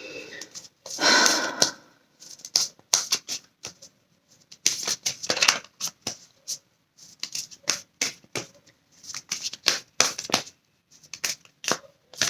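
A tarot deck being shuffled by hand: a fast stream of sharp card clicks and slaps, with longer rustling runs of sliding cards about a second in and about five seconds in.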